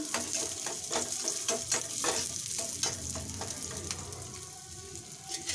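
Chopped onions sizzling in hot oil in a small steel pan as a spatula stirs and scrapes it, frying them toward golden brown. The stirring clicks thin out after about three seconds, leaving the steady sizzle.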